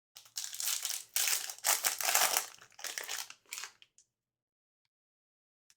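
A foil trading-card pack wrapper crinkling as it is handled and opened, in several crackly bursts that stop about four seconds in.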